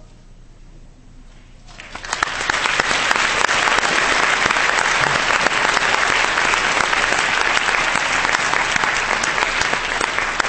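Audience applause: a short hush, then dense clapping breaks out about two seconds in and keeps up, easing slightly near the end.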